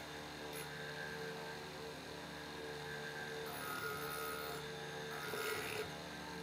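Electric motor spinning an abrasive disc on its spindle, with a steady hum. From about halfway through, the wooden carving is held against the disc for roughly two seconds, adding a rough sanding noise over the hum.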